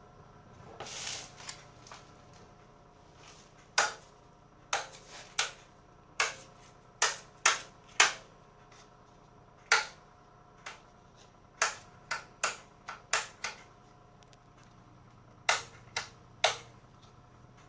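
A Pioneer amplifier being handled, giving a string of sharp, irregular clicks, with a short rustle about a second in.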